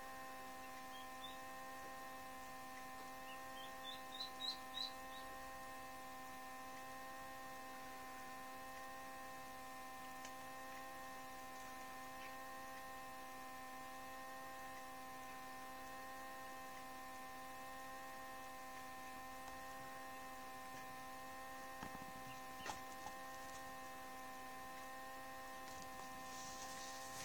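Steady electrical hum of the egg incubator, with a quick run of faint, high, short duckling cheeps about one to five seconds in and a couple of small taps later on.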